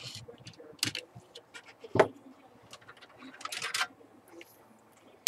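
Hands handling the plastic case and parts of a Fluke 8020B multimeter during reassembly: a run of small clicks and taps, one louder knock about two seconds in, and a short scraping rustle a little later.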